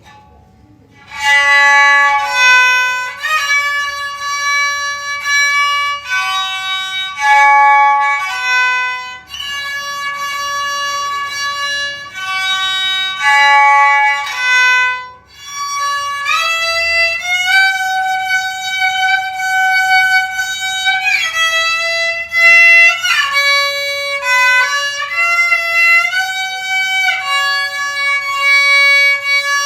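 Kokyu, a Japanese bowed string instrument, playing a melody of held notes joined by sliding pitch glides, starting about a second in.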